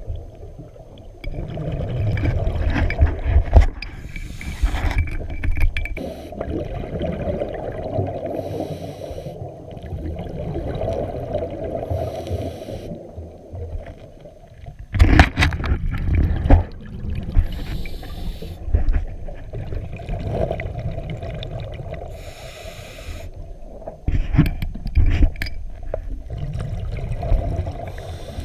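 A scuba diver breathing underwater through a regulator, heard muffled: a burst of exhaled bubbles every few seconds over a low rumble. There are a few sharp knocks and scrapes about halfway through and again near the end.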